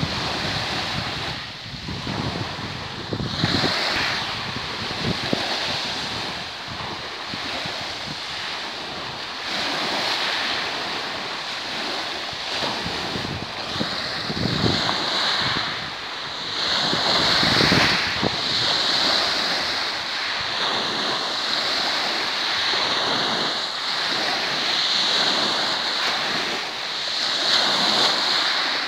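Small sea waves breaking on a pebble beach, the surf washing up and draining back over the stones in surges a few seconds apart. Wind buffets the microphone.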